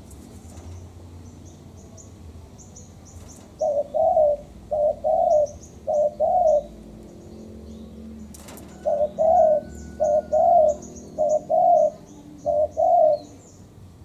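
Spotted dove cooing: two phrases of short-then-long double coos, three doubles in the first phrase and four in the second, with a pause between. Faint high chirps of small birds go on throughout.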